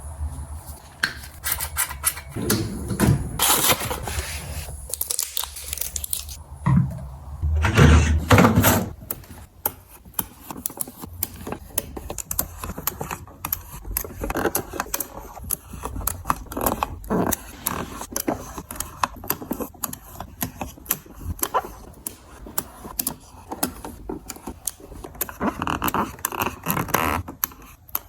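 Groceries and packaging being handled and put away: a dense run of small clicks, taps and plastic rustles, with a few longer, louder rustling scrapes in the first nine seconds and again near the end.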